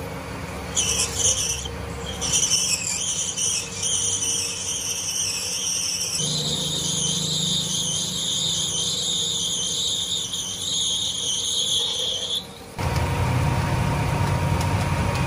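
A cutting tool squealing as it cuts into a Teflon (PTFE) workpiece. It starts in broken bursts, becomes a steady high squeal from about six seconds in, and cuts off suddenly near the end. After that a machine motor runs on with a steady hum.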